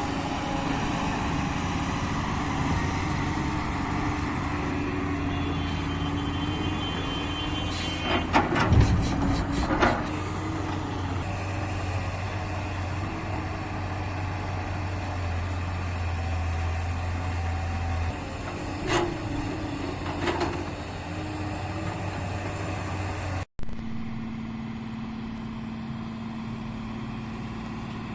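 Heavy diesel engines of an excavator loading a dump truck running steadily, with a cluster of sharp metal clanks about eight to ten seconds in and two more later. There is an abrupt break about two-thirds of the way through, after which a different, steadier engine note runs on.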